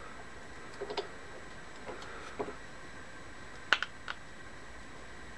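A few short, sparse metal clicks and clinks as locking pliers are worked and clamped onto a #40 roller chain on an engine sprocket, the loudest click a little before four seconds in.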